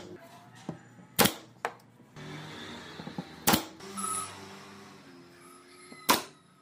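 Pneumatic nail gun firing: three sharp clacks, about a second in, midway, and near the end.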